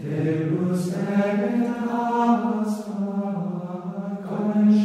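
Slow sung chant as background music, with long-held notes.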